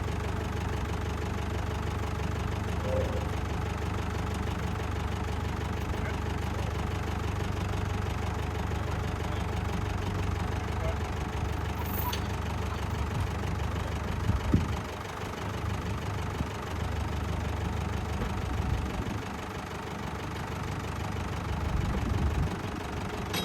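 Old tractor engine running at idle with a steady low drone. About two-thirds of the way through there is a sharp clunk, and the engine sound drops a little after it.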